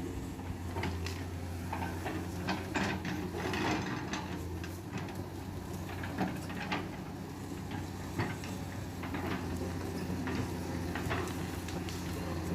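Komatsu PC200 excavator's diesel engine running steadily, with irregular knocks and clatter throughout.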